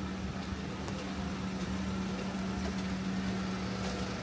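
A steady low mechanical hum that cuts off near the end, over background noise.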